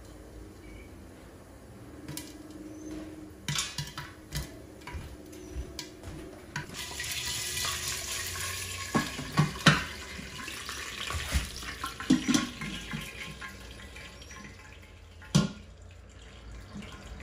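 Oil sizzling in a hot Instant Pot insert under a glass bowl, with scattered sharp pops from the kernels. The sizzle swells loudly through the middle, and a few heavier knocks come as the glass bowl is tilted and set back on the metal insert.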